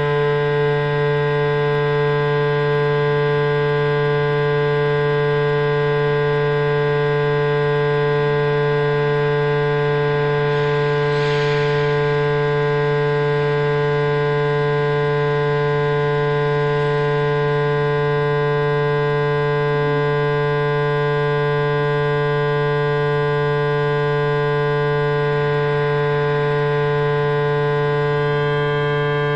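Sound installation's loud, steady drone of many held tones over a strong low hum, unchanging in pitch.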